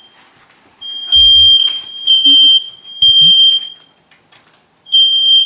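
Newly installed interconnected smoke alarms sounding: loud, high-pitched beeps in groups of three with a pause between groups, the temporal-three evacuation pattern. The alarm was set off during installation and the connected units are all going off together.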